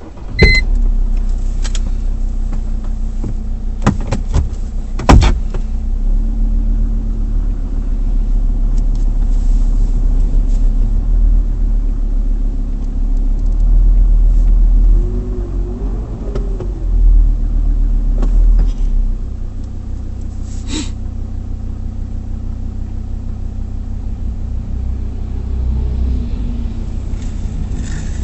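Mercedes-Benz C250 Turbodiesel's five-cylinder diesel engine starting at the very beginning, then idling with a steady diesel drone. Two sharp knocks come about four and five seconds in.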